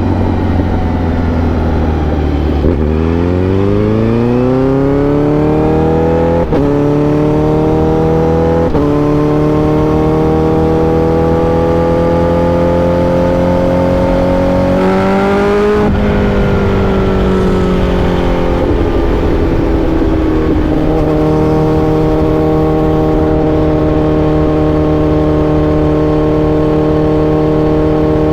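Honda CBR1000RR-R SP's inline-four engine heard from the bike as it is ridden. It pulls hard from about three seconds in, with two gear changes around six and nine seconds. It climbs slowly at a steady clip, revs up briefly past the middle, then rolls off and settles to a steady cruise.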